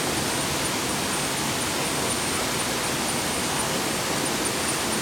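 Steady rush of flowing water, an even hiss without change, with a thin steady high-pitched tone above it.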